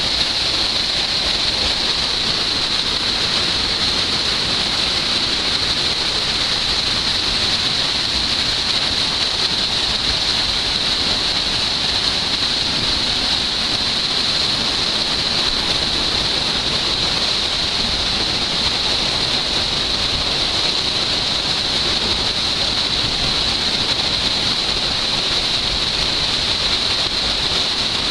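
Fast-moving waterfall water rushing steadily and loudly, a continuous hiss with no let-up.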